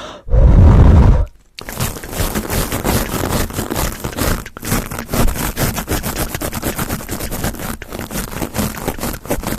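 Close-up scratching on a microphone, a dense crackly scraping that keeps going. It follows a loud, low rumble about a second long right at the start, as the mic is handled.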